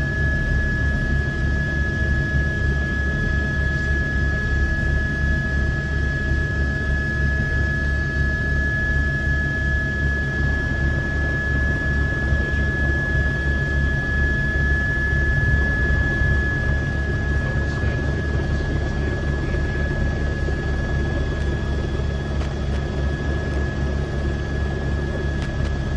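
News helicopter's rotor and turbine engine running steadily, heard from on board: a rapid low beat from the blades under a steady high whine that weakens about halfway through.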